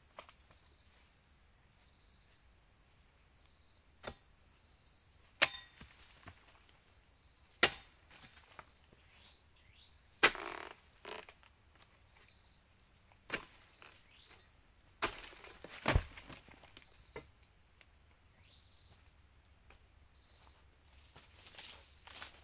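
Steady high-pitched insect chorus, with a handful of sharp knocks or snaps spaced a few seconds apart.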